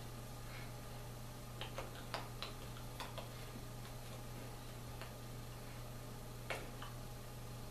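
Quiet room tone with a steady low hum and a few faint, irregular clicks and taps from a person's hands moving and touching while signing, most of them bunched together about two seconds in.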